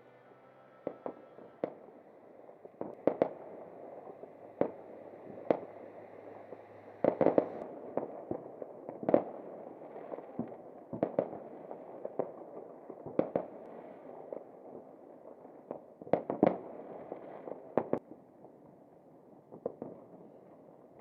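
New Year's fireworks: about two dozen sharp bangs at irregular intervals, sometimes two or three close together, over a steady rushing noise of more distant fireworks.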